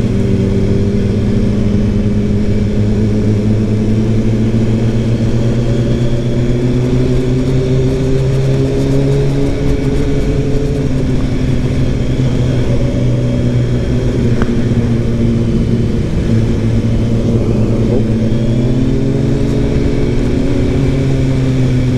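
Sport motorcycle engine running at fairly steady, moderate revs, its pitch drifting slowly up and back down.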